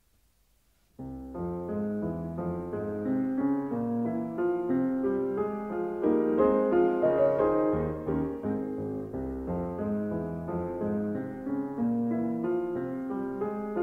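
Piano music, a melody of separate notes that starts about a second in after near silence.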